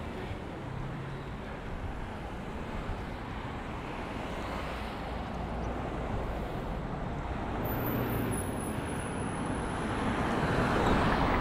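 Steady rush of traffic and road noise heard from a bicycle going downhill, swelling near the end.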